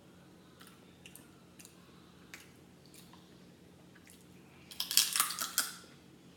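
Close-up eating sounds: a few faint clicks as fingers pick at seafood, then about five seconds in a dense burst of crackling mouth sounds lasting about a second as a bite of food is taken and chewed.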